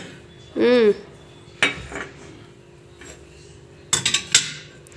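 Ceramic teacups and saucers clinking against each other and a steel tray as they are handled, with a few sharp clinks: one about a second and a half in and two close together near the end.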